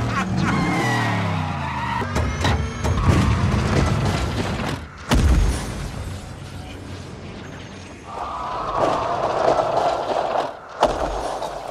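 Edited action soundtrack: a car engine revving over music, a run of sharp impacts, and a heavy explosion boom about five seconds in. Near the end a studio audience laughs.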